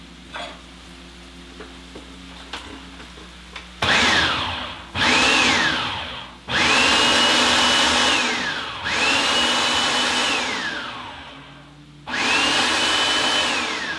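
Hamilton Beach food processor pulsed five times, chopping salsa to a medium-chunky texture. Each pulse is a motor whine that spins up quickly, holds and winds down when the button is let go. The first two pulses are short and the last three are held about two seconds each; the pulsing starts about four seconds in.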